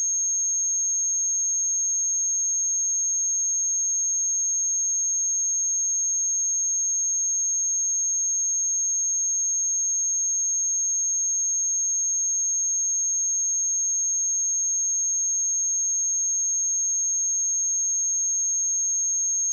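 A pure 6478 Hz sine-wave test tone, one steady high-pitched note held without change.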